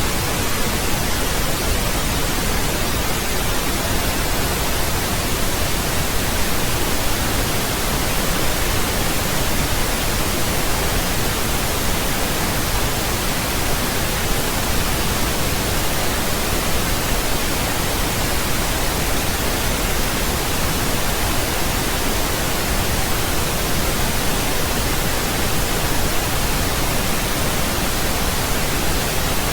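Steady, unbroken pink noise: an even hiss spread across all pitches, with no changes or events.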